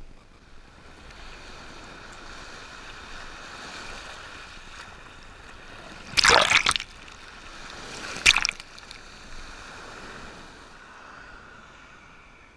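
Small shore waves washing in over a camera at the waterline: a steady rush of water with two loud splashes, one about six seconds in and a shorter one about two seconds later.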